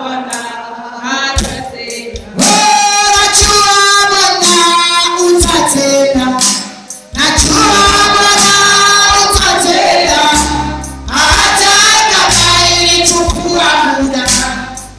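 Congregation and choir singing a worship song, female voices prominent, over instrumental accompaniment. The singing swells to full volume about two seconds in and dips briefly around seven seconds.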